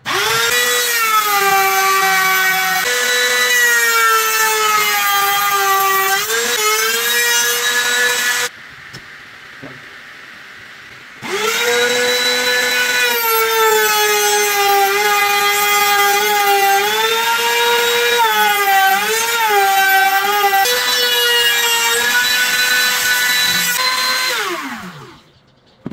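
INGCO laminate trimmer (a small 500 W router) switched on and running at high speed. Its whine sags and wavers in pitch as the bit cuts into the pine. It stops about a third of the way in, starts again a few seconds later, then is switched off near the end and winds down with a falling whine.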